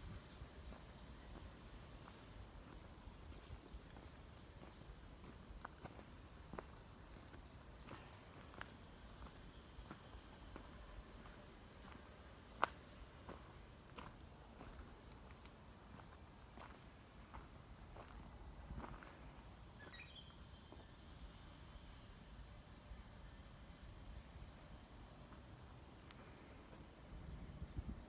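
A steady, high-pitched chorus of insects, with faint footsteps and light clicks of walking on a forest trail.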